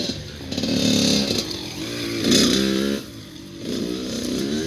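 Kawasaki dirt bike engine revving up and easing off several times as it is ridden, with the engine note dropping back about three seconds in before picking up again.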